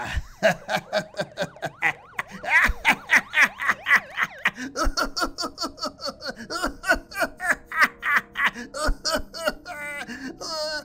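The Joker's long laugh, acted by a man: a rapid run of short 'ha' pulses, about four a second, with the pitch swooping up and down, for about ten seconds.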